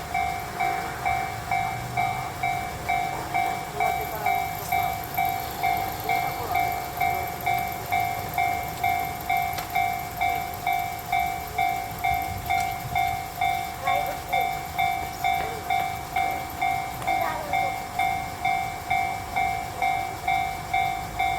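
Japanese level-crossing electronic warning bell ringing steadily, about two dings a second, while the crossing is closed for an approaching train.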